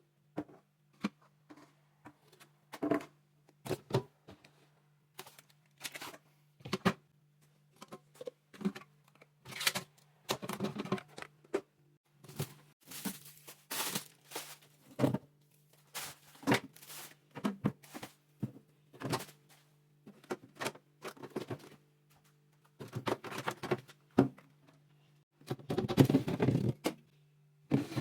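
Handling things while cleaning out a fridge: irregular knocks and clicks as containers and shelves are picked up and set down, with stretches of rustling and scraping. A steady low hum runs underneath.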